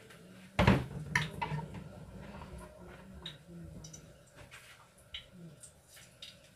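Kitchen handling sounds: a sharp knock about half a second in, then scattered light clicks and clatters of a spoon, bowl and pots.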